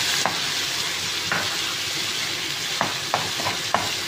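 Chopped onions and curry leaves sizzling in hot oil while a spatula stirs them, with several sharp knocks and scrapes of the spatula against the pan. This is the onions beginning to sauté.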